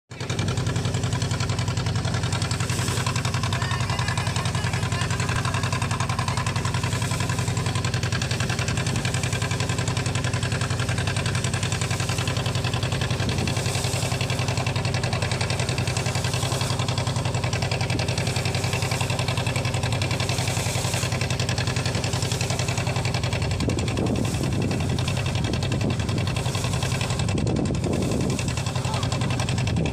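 Boat's engine running steadily with a low, even hum, over a steady hiss of water along the hull.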